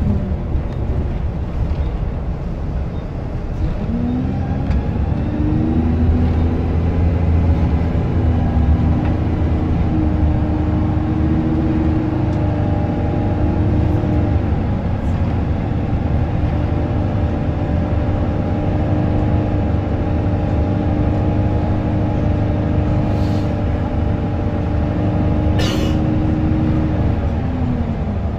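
Optare Versa single-deck bus heard from inside the passenger saloon while under way: a low engine and drivetrain rumble with a hum that drops in pitch at first, rises about four seconds in, holds steady for most of the time, then falls again near the end. One brief sharp knock or click a little before the end.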